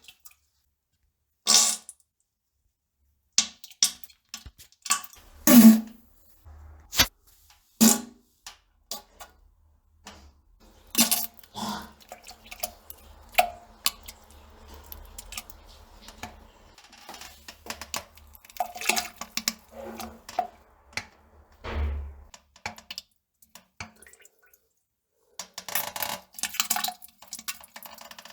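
A person defecating on a toilet: a series of sharp plops and splashes into the bowl water, with stretches of low rumble from passing gas.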